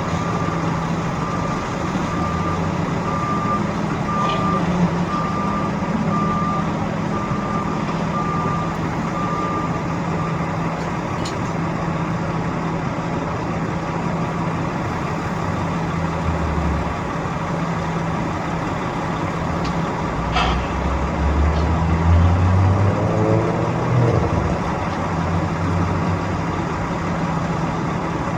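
Heavy construction machinery at work: a diesel engine running steadily while a reversing alarm beeps about once a second, then stops about ten seconds in. About twenty seconds in there is a sharp clank, and the engine then revs up louder for a few seconds.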